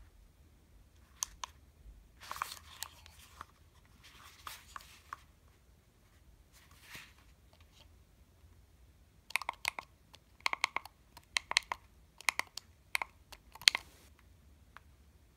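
Handling noise from a plastic headphone earcup turned in the hands close to the microphone: a few soft rustles, then about halfway through a run of sharp clicks and taps lasting several seconds.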